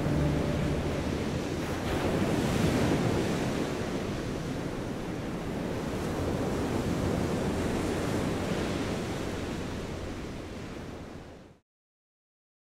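Ocean surf with wind: an even rush of waves that swells twice, then fades and cuts off shortly before the end. The last notes of music die away at the start.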